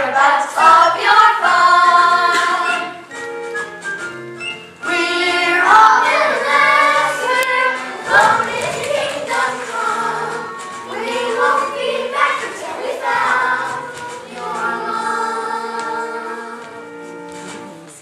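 A stage cast of children singing a musical number together in chorus.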